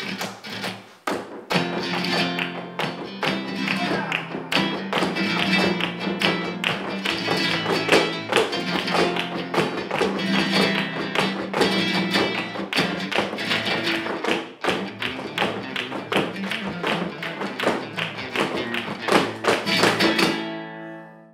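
Flamenco music with guitar, under rapid flamenco footwork: heeled shoes striking the dance platform in dense, sharp taps. The music and the footwork stop abruptly near the end.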